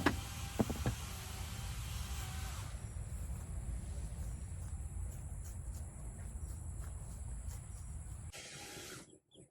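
Steady low rumble of outdoor background noise, with three sharp knocks in the first second from a shovel digging in red clay soil. The noise cuts off abruptly near the end.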